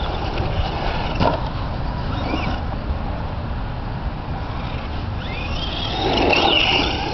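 Radio-controlled car driving on a dirt track, its motor whine and tyres loudest about six seconds in as it passes close, over a steady low rumble.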